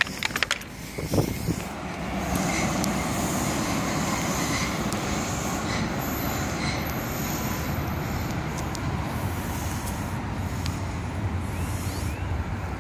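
MetroValencia electric metro train running along the track in a cutting: a steady rumble of wheels on rails, with faint high squeals as it takes the curve. A few knocks at the start come from handling the camera.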